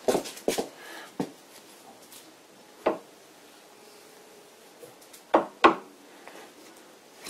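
Metal clunks and clicks from the lever-operated engaging mechanism on a vintage Karger sliding-spindle lathe headstock, as the dovetailed plate slides to lock the star nut onto the master thread. A quick cluster of knocks comes at the start, then single knocks about one and three seconds in, and the two loudest close together a little after five seconds.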